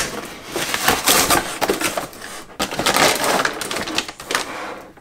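Cardboard box and clear plastic bag rustling and crinkling as a package is opened and its contents pulled out, a dense run of irregular crackles that dies down near the end.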